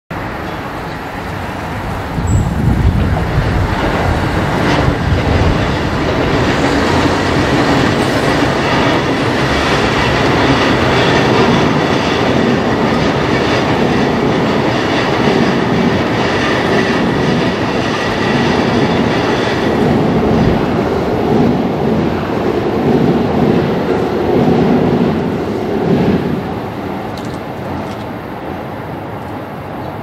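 A train running by on the tracks: a steady rumble with wheel clatter. It swells about two seconds in and dies down a few seconds before the end.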